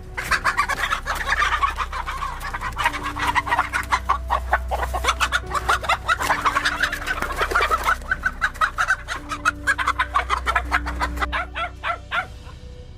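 A flock of chickens clucking rapidly, many calls overlapping, dying down about a second before the end.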